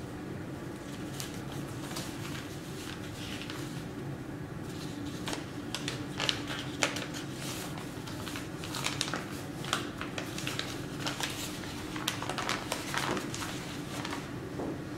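Old paper letters being handled and unfolded by hand: dry paper rustling and crinkling, sparse at first and then thick and busy through most of the second half, over a steady low hum.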